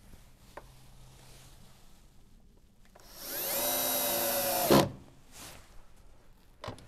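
Cordless drill-driver driving a single screw through a metal shade bracket into the wooden window frame: the motor whine rises quickly in pitch about three seconds in, holds for under two seconds, and ends with a sharp clack as it stops. Light handling clicks come before it.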